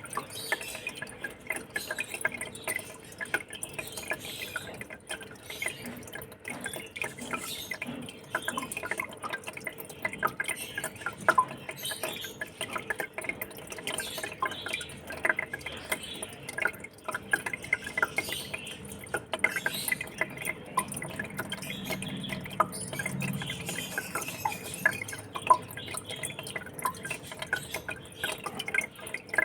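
Water in a fish tank trickling and splashing, a steady stream of many small irregular drips and bubble pops over a faint steady hum.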